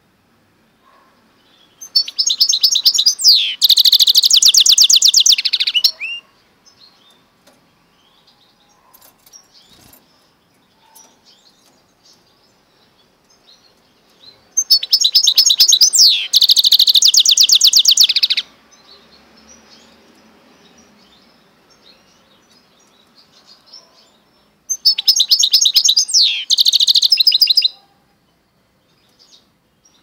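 Goldfinch × canary mule (a hybrid finch) singing three song phrases of three to four seconds each. Each phrase is made of fast high trills with one falling whistle, and there are soft chips between the phrases.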